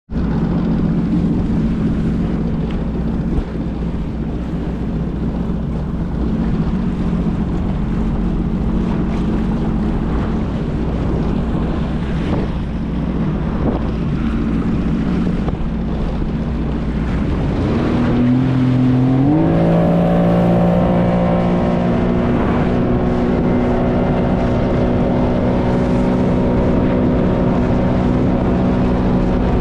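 Jet ski engine running steadily over a rushing noise. About two-thirds of the way through, the engine revs up in a rising whine and then holds at a higher pitch as it speeds up.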